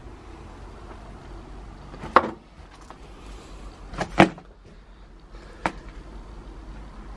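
Three sharp knocks about a second and a half apart, the middle one the loudest with a smaller knock just before it, over a low steady background hiss.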